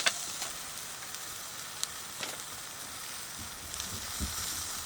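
Lamb ribs sizzling as they cook, a steady hiss, with a sharp click at the start and a couple of fainter clicks about two seconds in.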